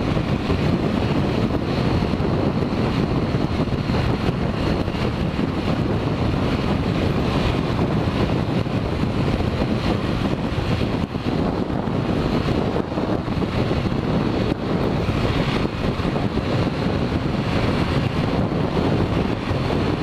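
Heavy wind rushing and buffeting over the microphone of a Yamaha XTZ 150 motorcycle ridden at about 95 km/h in strong wind: a steady, dense low rush with the bike's running and road noise mixed in beneath.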